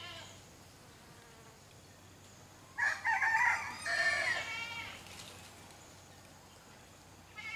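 A rooster crowing once, a loud call of several parts lasting about two seconds, in the middle. Short goat bleats come at the very start and again at the end.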